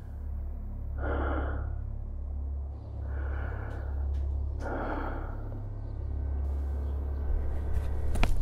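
Three heavy breaths, about two seconds apart, over a low steady drone. Near the end, a few sharp clicks begin.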